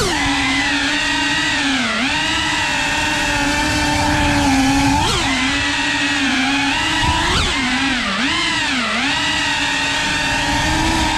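Cinewhoop FPV drone's brushless motors and ducted propellers buzzing with a steady high whine. The pitch dips and swells with throttle changes several times, with a few brief sharp upward blips.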